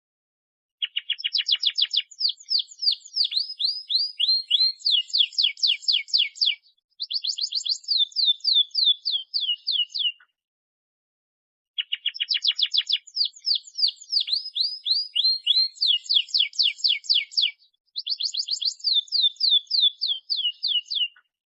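Domestic canary singing a long, fast song of rapid trills and rolls, each phrase lasting about nine seconds. After a short silence the same phrase comes again, as if the recording is looped.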